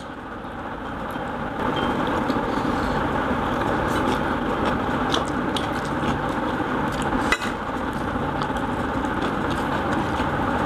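Table eating sounds: rice being mixed and eaten by hand from plates, with scattered light clinks of dishes and spoons, the sharpest about seven seconds in, over a steady background hum.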